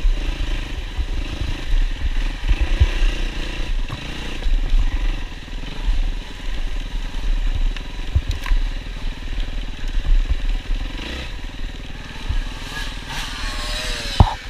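Yamaha WR450F single-cylinder four-stroke dirt bike engine running while being ridden, with a heavy low rumble and scattered knocks throughout. A sharp knock comes near the end.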